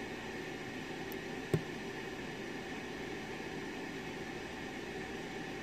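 Steady background hiss with a faint hum running under it, and one sharp click about a second and a half in.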